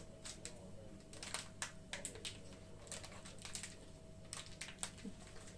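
Faint, irregular ticking and rustling of a paper sachet of dry yeast as it is shaken and tapped to sprinkle the yeast into a bowl of liquid.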